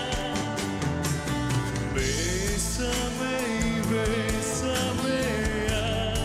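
Live pop-rock band playing, with drums and electric guitar, and a man singing a held, wavering melody over it.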